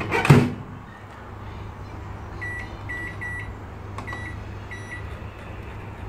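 Kenwood convection microwave's door shut with a loud knock, then the oven's control panel beeping five short times at one pitch, with a click, as the cooking mode and timer are set.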